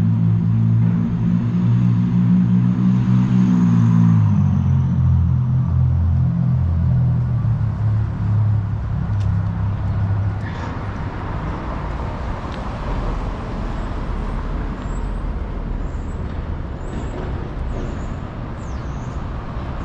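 A vehicle's low engine drone close by, stepping down in pitch about four seconds in and fading out by about nine seconds, followed by steady city street traffic noise.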